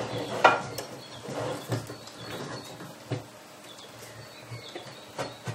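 A few short knocks and clatters as the plastic knobs are pushed onto the drill press's feed handle arms, the loudest about half a second in.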